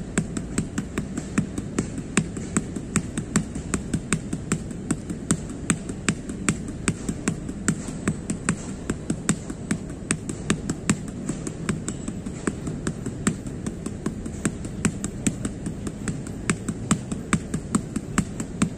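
Punches landing on punch mitts: a steady run of sharp smacks, about three or four a second, with no letup.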